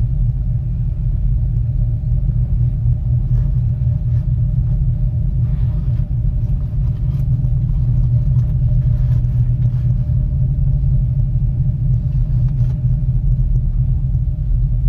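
Steady low rumble of a ropeway gondola cabin travelling along its cable, with a faint steady hum and a few light knocks.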